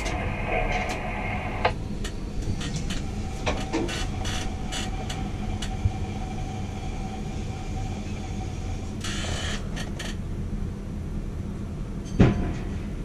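Tower crane machinery running with a steady low hum while the hook is lowered slowly, with scattered clicks, a short burst of hiss about nine seconds in and a sharp knock near the end.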